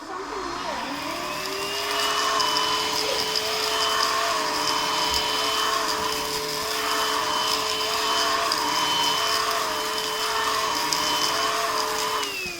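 Battery-powered Onson stick vacuum switched on and running after a repair to a cut wire. The motor whine rises to speed over the first second or so and holds steady, with a higher tone that wavers up and down every second or two. Near the end it is switched off and winds down.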